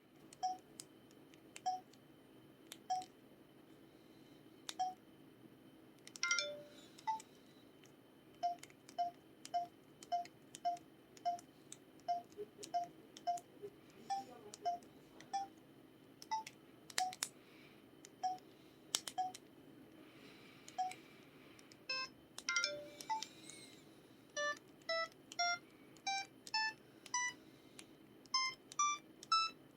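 Samsung SPH-X7500 phone's built-in keypad tones: short pitched 'tong' beeps, one per button press, many at about the same pitch, with faint clicks of the keys. From about 24 seconds in the beeps step upward in pitch, like a scale.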